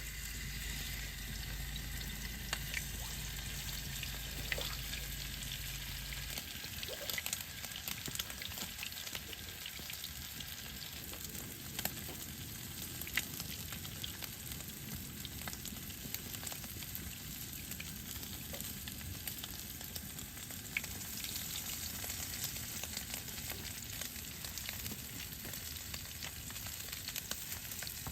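Steady sizzling and crackling over a wood fire, dotted with small sharp pops. A low hum underneath stops about six seconds in.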